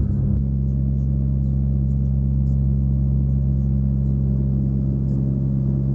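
A loud, steady low drone of several sustained low tones that holds unchanged throughout.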